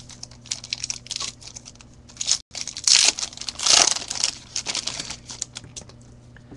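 Foil wrapper of a 2010 Topps Platinum Football trading card pack crinkling and tearing open by hand, loudest about three to four seconds in.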